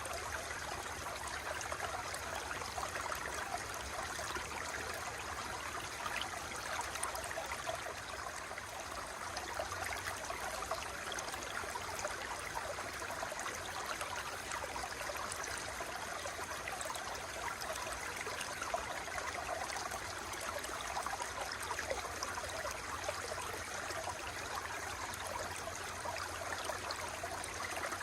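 Running water flowing and trickling steadily, with a constant fine bubbling.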